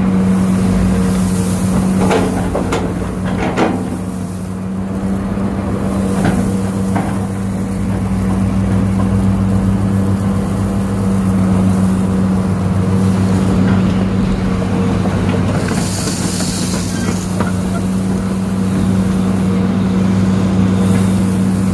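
Hitachi excavator's diesel engine running steadily as the machine swings a loaded bucket, heard from inside the cab. A few knocks come in the first seven seconds, and a short hiss about sixteen seconds in.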